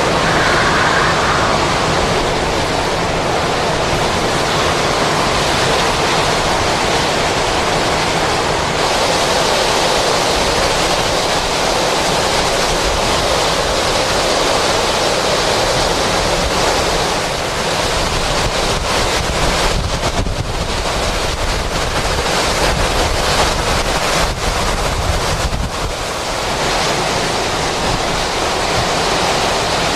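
Hurricane-force wind blowing hard in a steady rushing noise, buffeting the microphone, with gusts coming and going in the second half.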